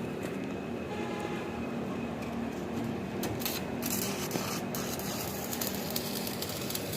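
Electric arc welding crackling in short runs with brief breaks, starting about three seconds in, over a steady workshop hum.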